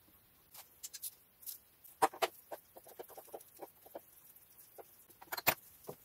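Plastic air intake pipe and air filter housing being worked loose by hand, giving a string of light clicks and knocks. The sharpest come as a pair about two seconds in and another near the end.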